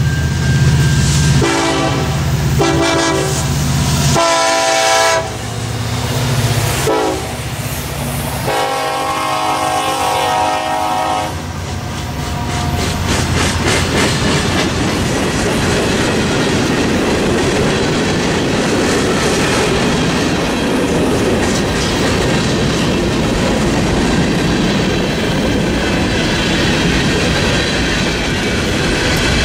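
Norfolk Southern freight train: the diesel locomotive's air horn sounds in several blasts over the engine's rumble as it approaches and passes, the last long blast ending about eleven seconds in. Then the hopper cars roll by close with a steady rumble and the clickety-clack of wheels over the rail joints.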